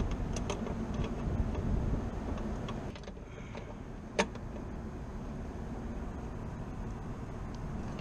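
Steady low rumble of rooftop machinery and wind, dropping a little about three seconds in, with a few light metallic clicks of pliers working on the blower motor's mounting base and one sharp click about four seconds in.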